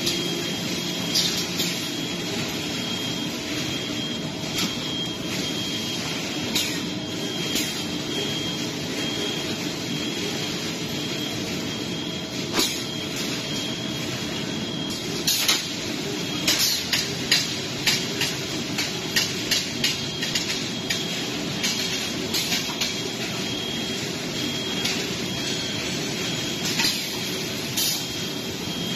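Automated steel-mesh reinforcement handling line for AAC panels running: gantry manipulators and a chain conveyor give a steady machine hum with a thin high whine. Sharp clacks come at irregular intervals, in a quick cluster about halfway through.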